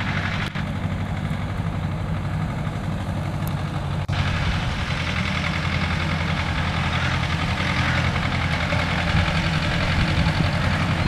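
A steady low engine hum, like a motor vehicle idling, dropping out briefly about half a second in and again about four seconds in.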